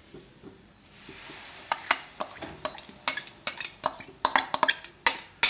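Mango pulp being spooned into hot ghee in a wok, with a brief sizzle about a second in. A metal spoon then scrapes and taps against the bowl and pan again and again, the clinks getting louder near the end.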